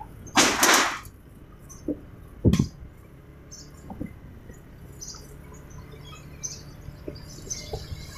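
Motorbike engine running at low speed as a steady low hum. A loud rush of noise comes about half a second in, and a sharp knock about two and a half seconds in.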